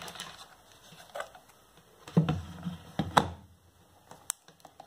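Multimeter test leads and plastic probes being handled on a table: a few scattered clicks and knocks, the loudest two about two and three seconds in, then a couple of light ticks near the end.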